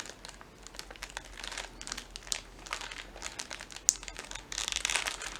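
Plastic biscuit packet crinkling as it is handled and opened, in irregular crackles that grow thickest near the end.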